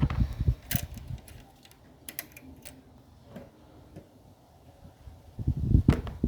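Scattered small clicks and taps, like small parts being handled on a bench. Louder, dull knocks and rumbles come near the start and again near the end.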